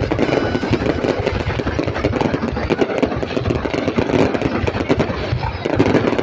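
Vehicle engines running steadily, with a dense rattling noise throughout.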